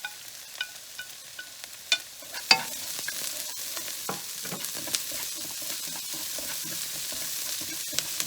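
Oil sizzling in a frying pan of ginger and onions, with a few sharp knocks of a utensil against the pan. About two and a half seconds in, the sizzle grows louder and denser as the garlic goes into the hot oil.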